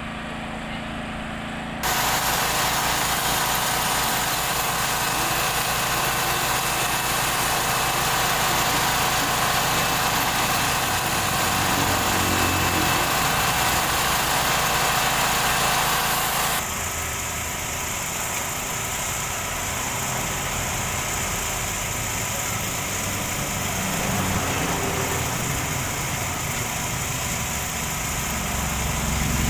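Komatsu PC78US excavator's diesel engine running steadily, with abrupt changes in the sound about two seconds in and again just past halfway.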